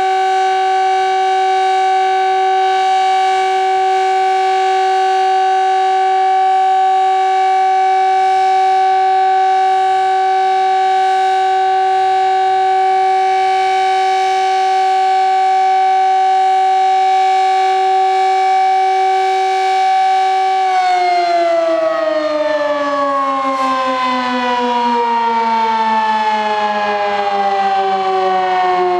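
Sterling Model M 8/16-port siren in a custom housing sounding its steady alert, two tones an octave apart held at a constant pitch. About 20 seconds in, it shuts off and winds down, its pitch falling steadily.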